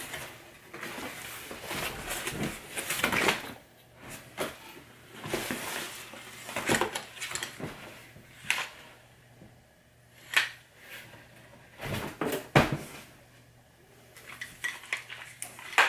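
Cardboard box flaps and packaging rustling as a white plastic floodlight fixture is lifted out and handled, with scattered clicks and knocks; two sharper knocks come in the second half.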